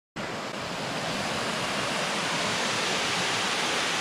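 Small waterfall cascading over rocks, a steady, even rush of water.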